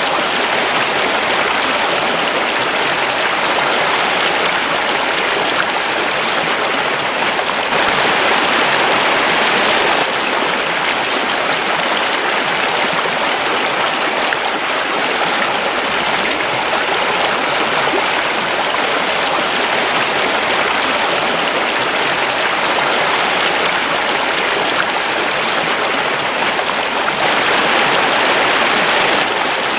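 Forest river water flowing in a steady rush, swelling slightly louder about eight seconds in and again near the end.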